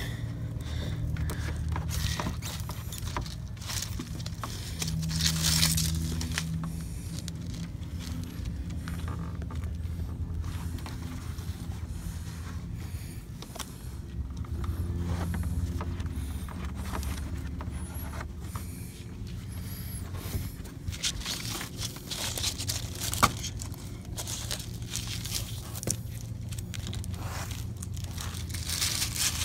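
Handling noises from a rubber EZ Lip bumper lip being pressed onto a car's front bumper: scattered scrapes, crinkles and taps, with two longer scraping, tearing stretches, over a steady low rumble.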